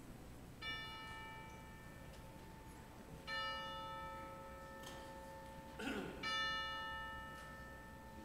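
A bell-like chime struck three times at the same pitch, about three seconds apart, each note ringing on and slowly fading; a short noise comes just before the third strike.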